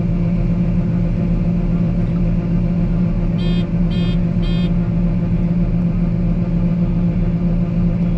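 Combine harvester running with a steady drone. About three and a half seconds in, three short electronic beeps sound about half a second apart.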